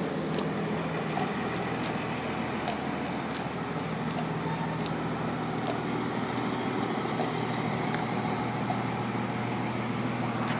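Steady city street background: a low, even hum of traffic and nearby machinery, with a few faint clicks scattered through it.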